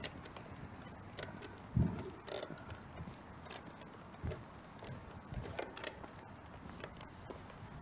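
Scattered small clicks and rattles, with a few dull knocks, from a handheld phone being handled while walking, over faint outdoor background noise.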